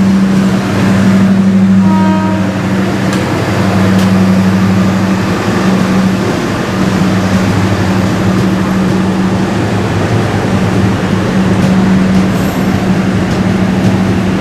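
A train running past, a loud steady low hum over rail noise, with a brief higher-pitched tone about two seconds in.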